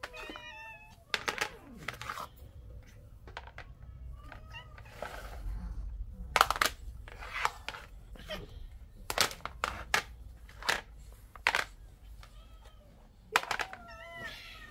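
Several cats meowing on and off: a run of calls at the start, more around the middle and again near the end. Between them come sharp clacks of plastic food trays being set down and stacked on a tile floor.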